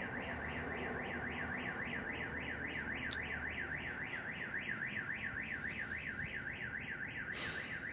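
A car alarm warbling: one electronic tone sweeping rapidly up and down, about four to five times a second, at a steady level.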